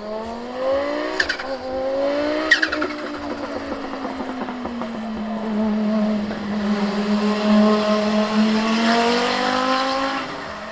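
Turbocharged five-cylinder engine of a 1988 Audi 200 Quattro Trans-Am race car accelerating hard through the gears. At the upshifts, about one and two and a half seconds in, come two sharp turbo chirps. The engine then pulls away with its pitch climbing again and fades near the end.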